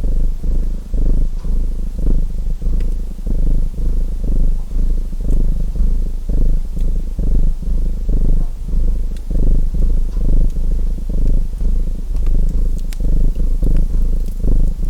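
Domestic cat purring close to the microphone, the purr swelling and fading about once a second with each breath in and out. Faint sparse crackles of a fireplace sit underneath.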